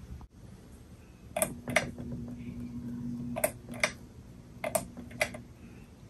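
Ceiling fan's pull-chain switch clicking in three pairs of sharp clicks about a second and a half apart. A steady low motor hum comes in with the first pair and drops a little at the second, as the fan steps through its speeds.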